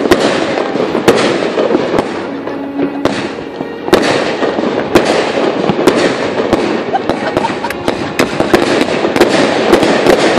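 Fireworks exploding in rapid succession: many sharp bangs over a continuous dense crackle.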